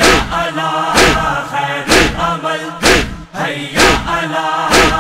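A chorus of men's voices chanting a noha over rhythmic chest-beating (matam) struck in unison, about one beat a second.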